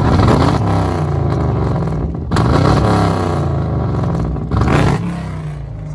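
Straight-piped Chevrolet Camaro SS V8 exhaust revving up in three surges about two seconds apart, each loud and then easing off; the engine is still misfiring.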